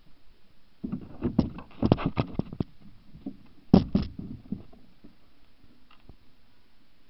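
Handling noise from a camera being gripped and fumbled close to its microphone: a cluster of knocks and rustles about a second in, then a few sharper knocks a little before the middle.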